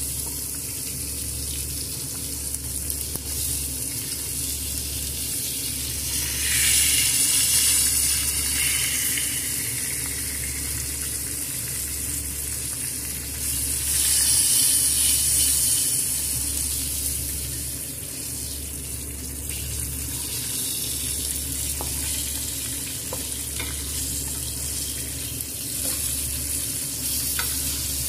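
Wagyu New York strip steak searing with garlic cloves in oil and butter in a nonstick pan: a steady sizzle that swells louder twice, about 6 and 14 seconds in.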